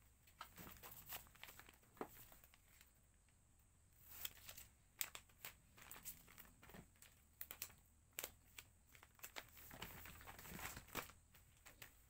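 Faint crinkling and rustling of packaging material being handled, with scattered light taps and clicks.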